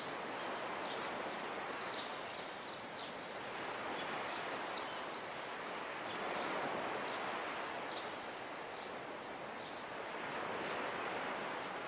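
Surf washing on a beach, a steady rush that swells and eases slowly, with a few short bird chirps over it in the first half.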